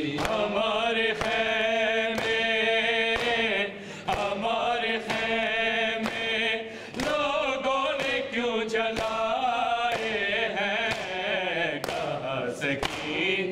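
Men's voices chanting a noha, a mournful Urdu lament, in unison, over regular chest-beating (matam) slaps about once a second.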